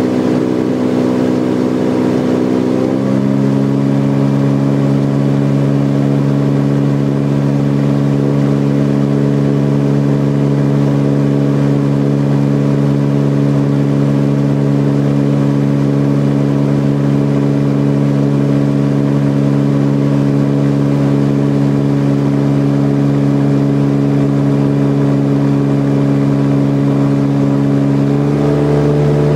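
Titan Tornado Super Stretch light aircraft's engine and propeller droning steadily, heard from inside the cockpit. The engine's pitch steps to a new level about three seconds in and changes again near the end, a change in engine speed.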